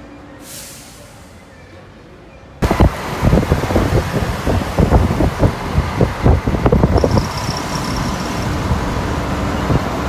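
Road traffic on a city street. It comes in suddenly about two and a half seconds in, after a quieter start, and a rapid run of muffled thumps sits over the traffic for about four seconds before it settles to a steady noise.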